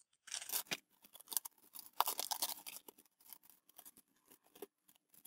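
Iceberg lettuce leaves being peeled off the head by hand: crisp crackling and tearing in irregular bursts, loudest about two seconds in, then fainter.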